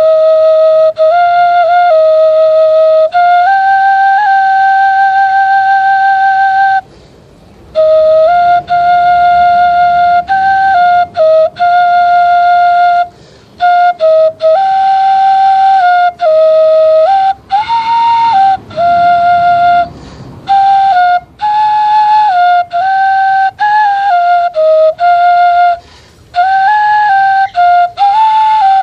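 Homemade bamboo native-style flute playing a slow melody of long held notes that step up and down within a narrow range, broken by short pauses for breath every few seconds.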